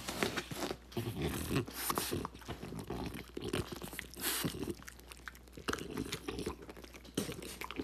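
French bulldog crunching and chewing a small piece of bread crust taken from a hand, in irregular crunches throughout.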